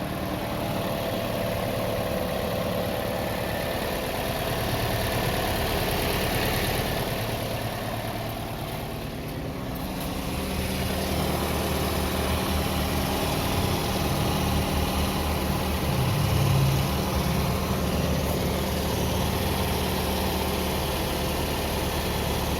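Toyota Vios engine running at a steady idle, with a brief dip about nine seconds in before it settles back slightly louder.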